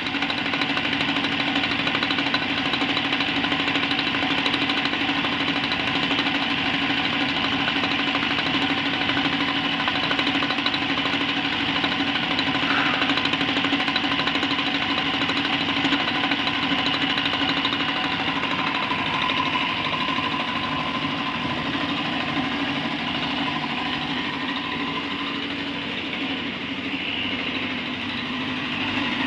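Batliboi vertical milling machine side-milling the curved edge of a steel plate with an end mill: a steady machine hum with the continuous grinding hiss of the cutter taking metal off.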